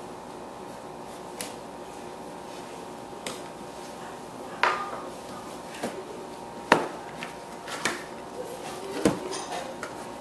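Hard toy parts and packaging being handled: a Beyblade set's pieces give scattered sharp clicks and knocks, about seven in all, with the loudest about two-thirds of the way through, over a steady background hum.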